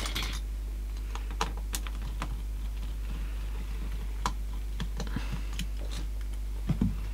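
Irregular small clicks and taps of plastic parts as a cassette deck's tape mechanism is handled and worked on by hand, over a steady low hum.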